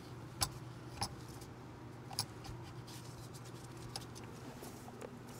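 A few light plastic clicks and taps as the bootloader board of a DQ381 DSG mechatronic unit is handled and lined up on its locating posts, spaced about a second apart, over a faint steady hum.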